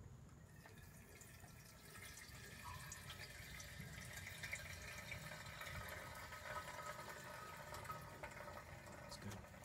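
Gasoline pouring from a plastic gas can's spout into a small engine's fuel tank: a steady splashing fill that starts about half a second in, grows louder after a couple of seconds, and stops near the end.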